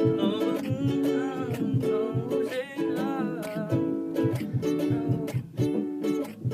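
Acoustic music: a strummed acoustic string instrument playing chords in a steady rhythm, with wordless singing over it for the first few seconds.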